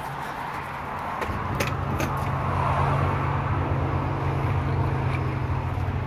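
A steady low engine hum that comes in about a second in and grows a little louder, with a faint rushing noise over it.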